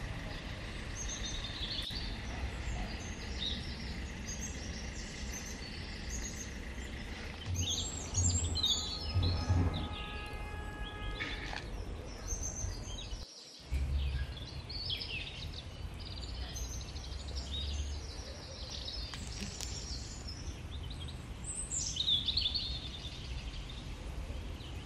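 Small birds chirping and twittering again and again over a steady low background rumble.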